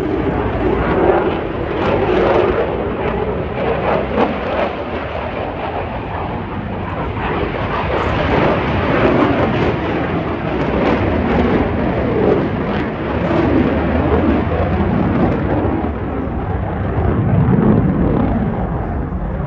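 Loud jet noise from an F-35C Lightning II's single F135 turbofan engine during a low flyby. The noise swells and eases without a break and carries a crackling edge.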